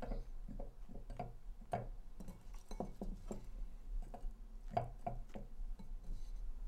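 A string of small, irregular taps and light clinks as strawberry slices are taken from a ceramic bowl and dropped into a wine glass, fingers and fruit knocking against the glass and bowl.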